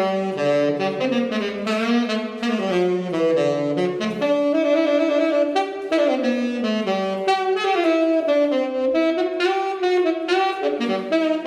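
Saxophone playing a solo melody, one line of connected notes moving up and down in pitch.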